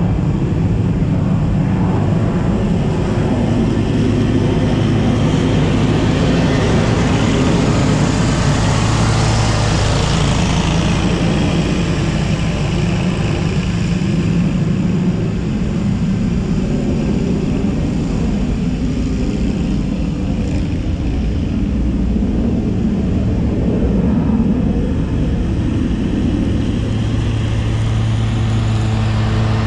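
A lawn mower engine running steadily, while a jet aircraft passes overhead: its rushing noise swells about six seconds in and sweeps down in pitch as it goes by, fading by around fourteen seconds.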